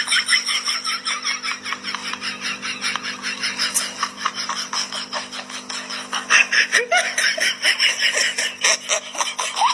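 Rapid, breathy laughing, several quick pulses a second with no break, over a steady low hum.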